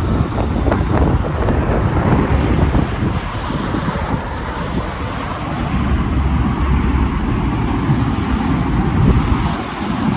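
Wind buffeting the microphone as a loud, steady low rumble, with road traffic noise underneath.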